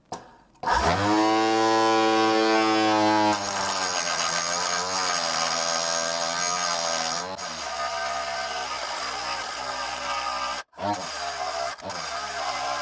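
A homemade cut-off saw's 895 DC motor spins up with a rising whine about a second in. A few seconds later its abrasive disc starts grinding through an 8 mm steel rod, a harsh hiss over the motor's hum. The grinding breaks off abruptly for a moment twice near the end.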